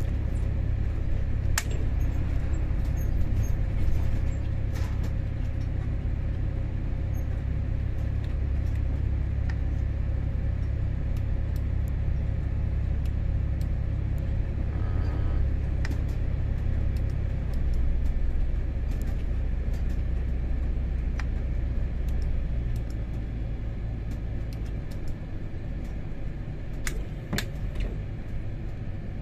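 Diesel engine and running gear of an SSP 110 SW ballast regulator, heard from on board as it travels along the track: a steady low rumble that eases off in steps in the last third, with a few sharp clicks as the wheels pass over rail joints and points.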